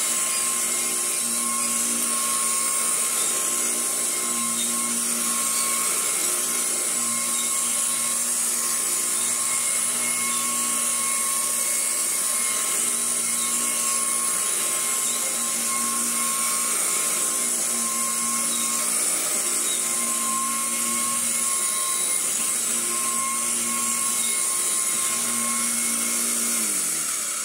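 Royal 606 commercial upright vacuum cleaner running on a rug: a steady rush of air with a high motor whine. At the very end the motor is switched off and its pitch begins to fall as it winds down.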